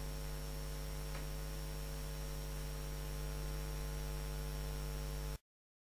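Steady electrical mains hum with hiss. It cuts off abruptly to dead silence about five seconds in.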